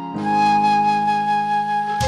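Background music: a melody holding one long note over a steady sustained chord.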